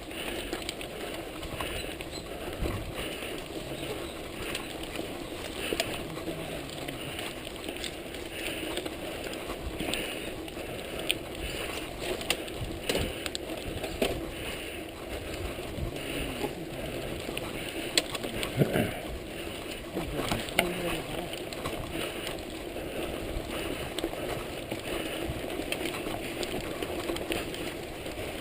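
Steady rushing noise of a bicycle ride on a road: tyre and wind noise with a faint pulse about once a second and scattered short clicks and rattles.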